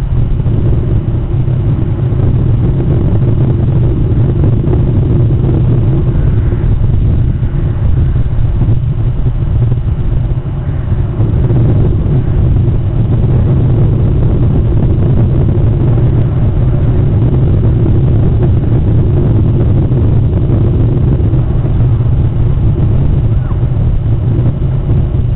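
Loud, steady low rumble with no distinct events.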